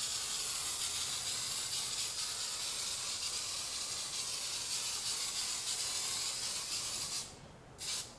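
Aerosol can of spray adhesive spraying in one long continuous hiss that stops about seven seconds in, followed by one short spurt near the end.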